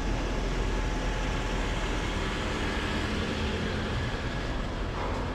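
Steady city street noise, led by a continuous low rumble of traffic.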